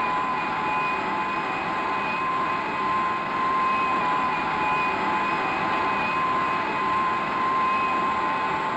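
Early experimental gas turbine jet engine running on a test stand: a steady rushing noise with a high, steady whine over it.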